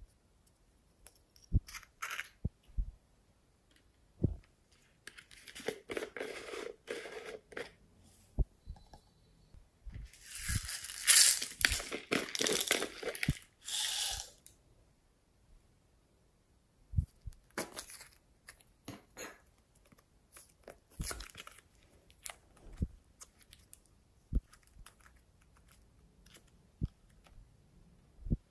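Small plastic containers and a plastic egg clicking and tapping as they are opened and handled over a tray of glitter-topped slime, with two longer stretches of crunchy rustling, the louder one about ten seconds in.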